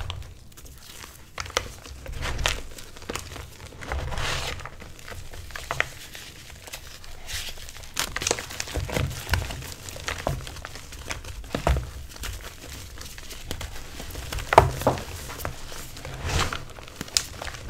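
Bare hands squeezing and crumbling reformed gym chalk and loose chalk powder: irregular crunching and crackling. A few louder crunches stand out, the loudest about fifteen seconds in.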